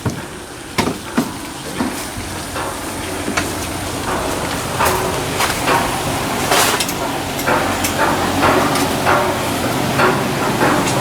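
Irregular knocks and clatter over a steady crackling hiss, growing busier about halfway through.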